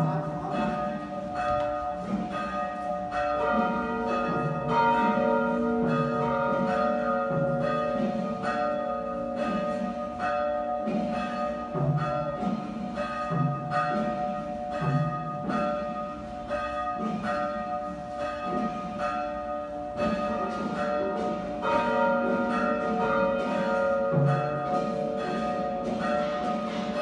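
Church bells tolling a requiem knell for the dead, several bells ringing together with long overlapping tones and a low stroke about every second and a half.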